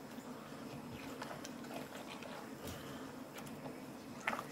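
Bare hands squeezing chopped onion into coconut cream in a stainless steel bowl: faint wet squelching with a few soft clicks, crushing the onion into the cream.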